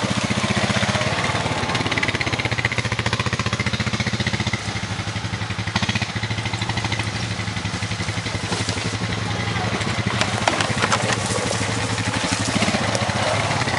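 Honda utility ATV engine running at low, steady revs as the quad crawls over a rocky trail, with a slight dip in level about four and a half seconds in.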